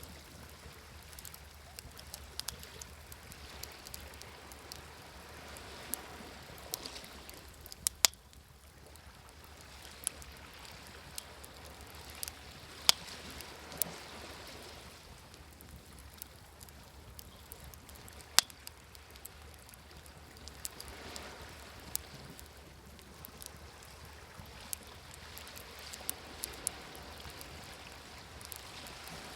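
Wood fire crackling, with irregular sharp pops, a handful of them much louder, over ocean waves washing in and drawing back in slow swells every several seconds.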